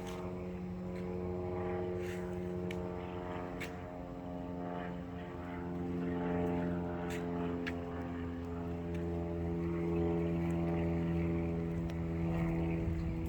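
A steady motor drone: a low pitched hum with a stack of overtones and a slight drift in pitch, with a few faint clicks.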